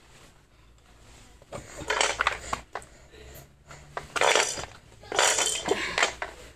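Hands tapping and scuffing on a hardwood floor in three short bursts, with a few sharper knocks.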